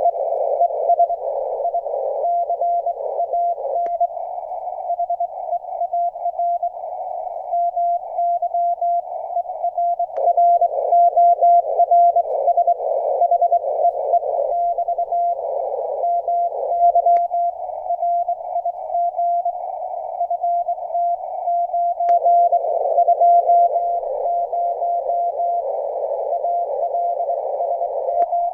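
Morse code received on an HF amateur radio transceiver (Kenwood TS-480SAT): a keyed tone around 700 Hz amid band static and noise, heard in turn through a tuned CW speaker, which brings out the 700 Hz tone and cuts the rest, and a regular communications speaker. A few faint clicks mark the switches between the speakers.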